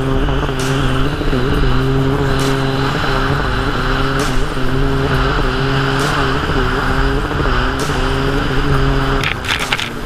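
Racing jet ski engine running flat out at near-steady high revs, with small dips in pitch, over the loud hiss of spray and rushing air. A few sharp knocks sound as the hull hits chop, several together near the end.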